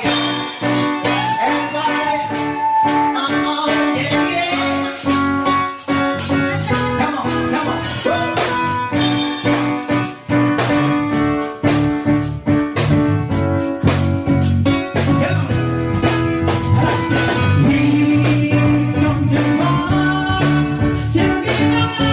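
Live band playing dance music: electronic keyboard with a steady drum beat, and a voice singing along.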